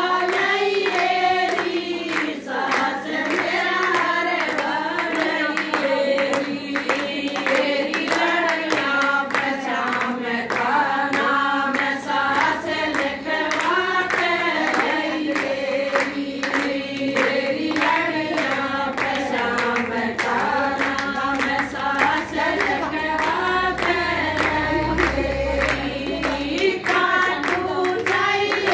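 A group of women singing a devotional bhajan together, accompanied by steady rhythmic hand clapping.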